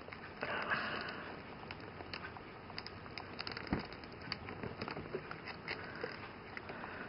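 Faint handling noises of a small plastic action figure being worked into its rubber-strapped gear pack by hand: light clicks, taps and rubbing, with one sharper knock about four seconds in.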